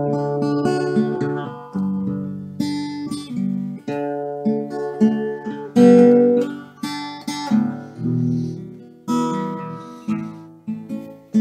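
Solo acoustic guitar played by hand: chords strummed and picked one after another, each ringing and fading before the next.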